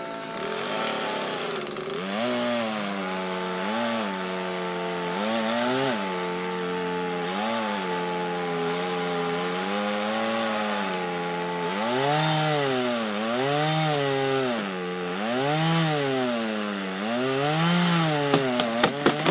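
Chainsaw cutting through a heavy tree limb. The engine's pitch repeatedly sags and recovers, about once every one to two seconds, as the chain bites into the wood. A few sharp cracks come near the end.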